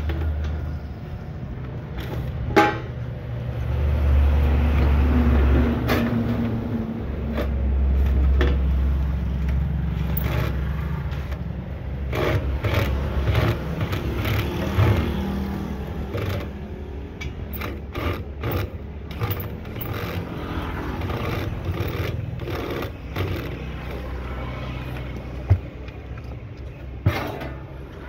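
A cordless driver running in two bursts of a few seconds each while backing screws out of an inverter welding machine's sheet-metal case, followed by many short clanks, taps and scrapes of metal parts and tools being handled.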